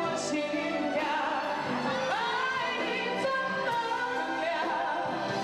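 A woman singing a Mandarin love ballad into a microphone over band accompaniment, holding and bending long sung notes.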